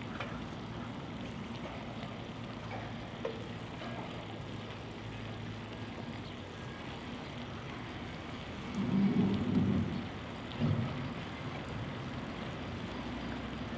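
Steady rolling and street noise of a bicycle ride. About two-thirds of the way through, a louder low rumble swells for a second or so, followed shortly by a brief knock.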